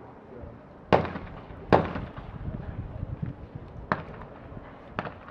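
Two loud shotgun shots in quick succession, about a second into the sound and less than a second apart, each trailing off in a short echo. They are followed by two fainter sharp reports.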